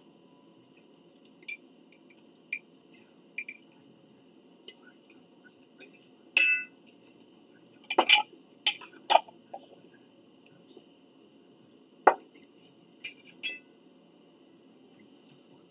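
Tableware clinking during a meal: utensils knocking dishes and a glass jar being handled. The clicks come about a dozen times at uneven intervals, the loudest about six, eight to nine and twelve seconds in, over a faint steady hum.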